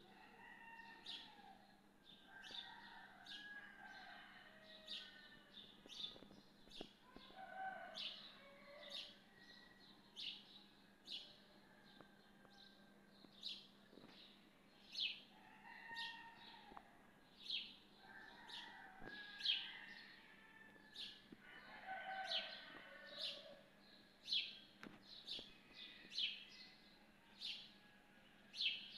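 Faint dawn birdsong: short high chirps repeated about once a second, with longer, lower calls now and then. A steady low hum runs underneath.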